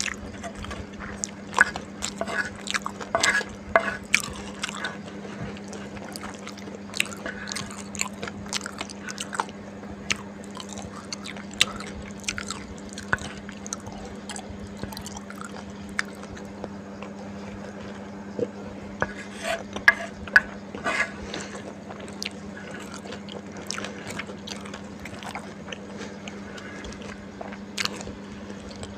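Close-up eating sounds: a person chewing flat rice noodles and wontons, with many short wet mouth clicks and smacks coming in clusters, over a steady low hum.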